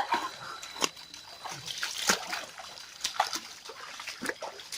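Water splashing and sloshing in a shallow river: a series of short, irregular splashes.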